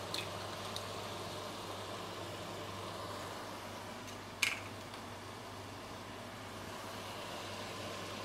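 Onion-tomato curry gravy simmering steadily in a pot on a gas burner. An egg is cracked into it with a couple of light clicks near the start, and there is one sharp tap about four seconds in.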